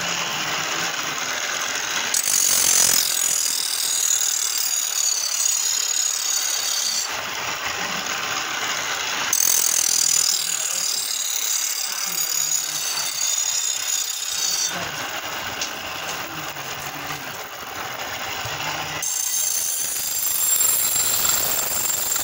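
Steel sickle blade ground against a spinning grinding wheel: a harsh, hissing scrape in three long passes, with duller mechanical running of the belt-driven wheel in the short lulls between them.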